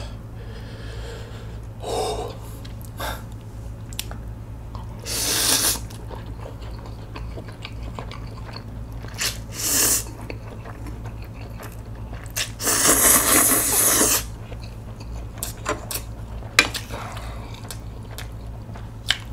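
A person slurping spicy mixed noodles (bibim-myeon) in several loud slurps, the longest lasting over a second about 13 seconds in, with chewing between them and a sharp click near the end.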